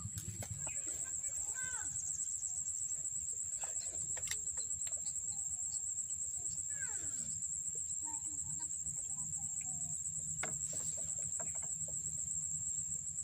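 Steady high-pitched insect drone with a few short bird calls over a faint low hum, in open riverside surroundings.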